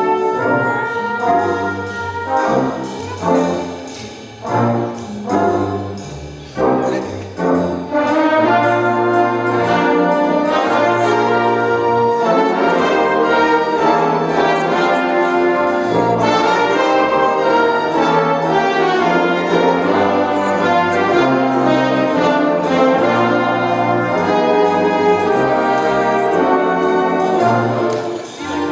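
Music in full, sustained chords: short separated chords with gaps between them for the first several seconds, then continuous held harmony.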